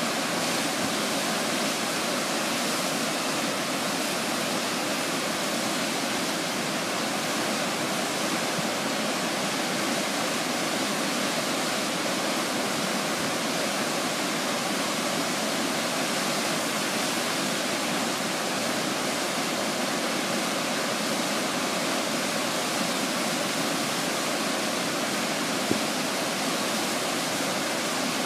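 Steady rush of Shell Creek's waterfall running in high flow, an even wash of falling water that does not change.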